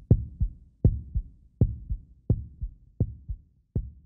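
A slow, low thumping beat in pairs like a heartbeat, a strong thump then a weaker one, repeating a little more than once a second and slowly getting quieter.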